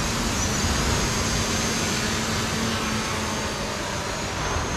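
DJI Mavic Pro quadcopter drone hovering close by, its propellers making a steady hum with a thin high motor whine. The low hum fades after about three seconds.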